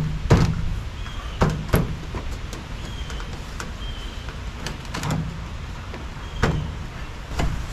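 About six short, sharp knocks and clunks at irregular intervals, over a steady low rumble.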